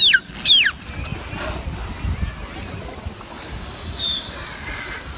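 Beluga whale calling with its head above water: two sharp, high chirps that sweep steeply down in pitch in the first second, then a long thin whistle that falls slowly. A low rumble of wind on the microphone and water lies under it.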